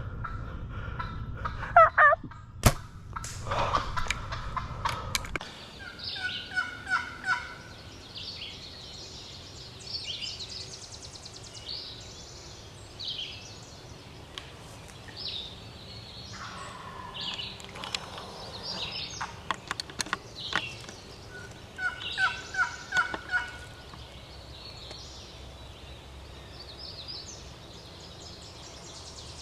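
Wild turkey gobbling: a rapid, rattling call that comes several times.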